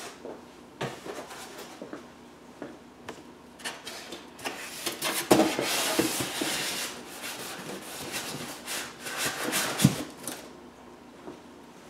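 Polystyrene foam packing blocks rubbing and scraping against cardboard and against each other as they are pushed into a cardboard TV carton. There is a knock about five seconds in and another near ten seconds.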